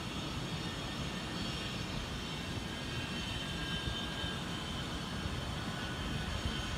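Steady, even hum of distant city traffic, with faint thin high tones above it.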